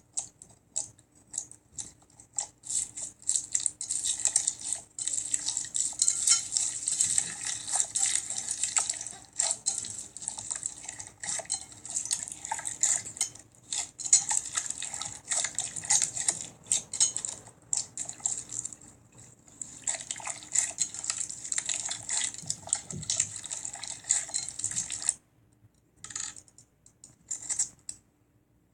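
Slime being squeezed and worked by hand, a dense run of wet clicks and small pops that breaks off briefly near the end.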